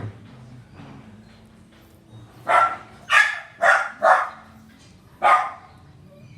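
A dog barking five times, four in quick succession and then one more about a second later.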